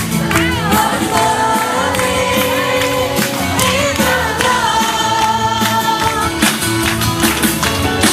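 Music with several voices singing together over a steady beat with bass and percussion; one voice slides in pitch near the start, and long held notes follow.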